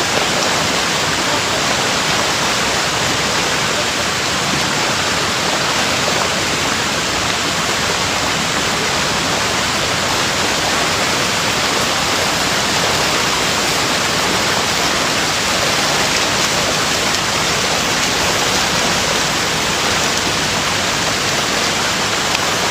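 Steady rushing of flowing water, a loud even hiss with no breaks.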